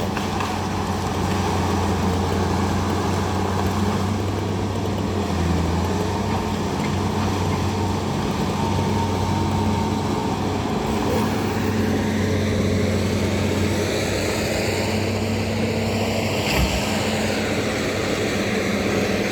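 Bulldozer diesel engine running steadily at a constant speed while it drags logs, with one short knock late on.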